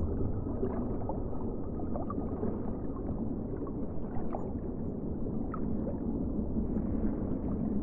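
Underwater recording: a steady low rumble with faint scattered clicks, cutting in and out abruptly like an inserted sound clip.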